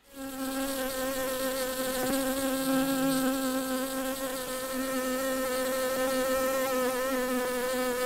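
Honeybees buzzing in a steady, low hum that fades in at the start.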